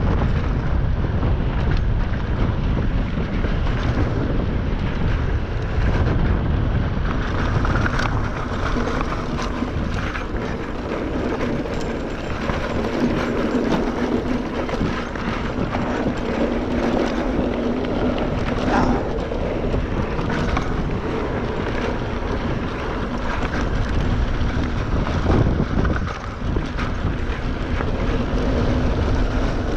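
Heavy wind buffeting the microphone during a fast mountain bike descent, with the tyres rumbling over the dirt trail and the bike clattering over bumps.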